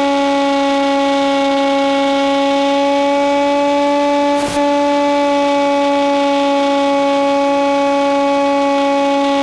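Electric motor and propeller of a Hawk Sky RC plane in flight, a loud, steady drone at constant pitch, heard through the onboard FPV audio. A brief click about four and a half seconds in.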